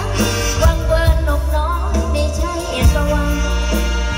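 Live Isan mor lam band music over a concert PA: a singer's wavering voice carries the melody over steady bass and a few sharp drum hits.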